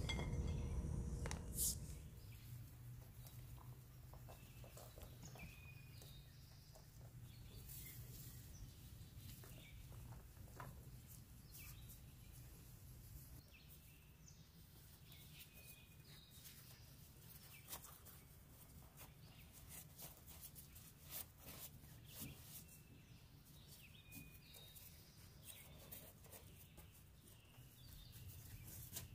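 Faint, scattered bird chirps over a steady low hum, with soft rustles and light taps as gloved hands handle shredded cheese and fold flour tortillas. A louder low rumble fills the first two seconds and stops abruptly.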